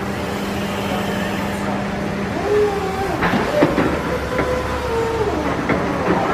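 Crown RR 5265S-45 reach truck's 36-volt electric hydraulic pump running as the mast and reach carriage are worked: a steady hum whose pitch steps up about two and a half seconds in, with a few clunks around three to four seconds in.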